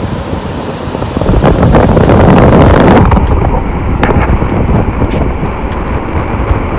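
Wind buffeting the microphone over surf washing across rocks. About three seconds in the sound turns duller, with the sea still washing and breaking.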